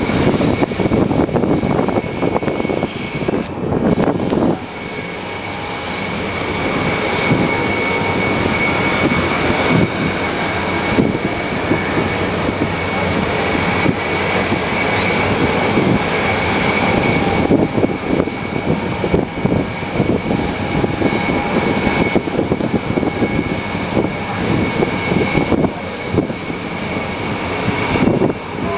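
Jet airliner engines running on the airport apron: a steady high whine over a broad rumble.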